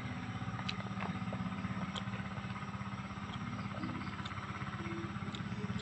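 A small engine running steadily at idle, with an even, rapid pulse. A few faint clicks sound over it.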